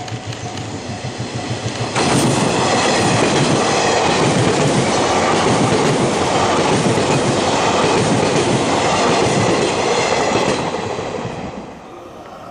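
JR East 583 series electric multiple unit passing close by a station platform. It grows louder as it approaches, jumps suddenly to a loud steady running noise about two seconds in, and fades away near the end.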